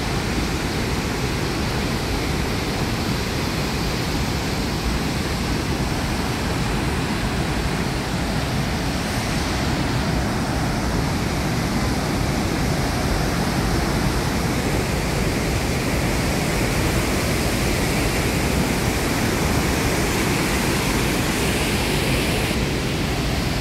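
Steady rush of Victoria Falls, the Zambezi River's waterfall, pouring into its gorge with spray, an even noise with no break. Its tone shifts slightly about ten seconds in and again near the end.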